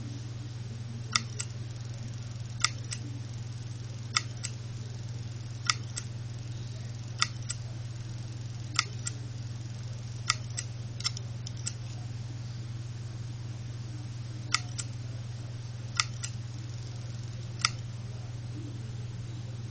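Opened 2.5-inch Seagate Momentus 5400.6 laptop hard drive running with its cover off: a steady low hum from the spinning platter, with sharp clicks from the head actuator, mostly in pairs, about every second and a half.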